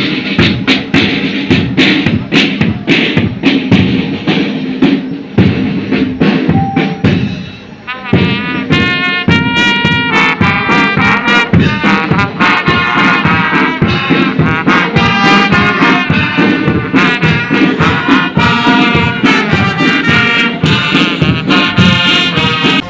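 Marching band music: a steady drumbeat, with brass coming in about eight seconds in to play a melody over the drums.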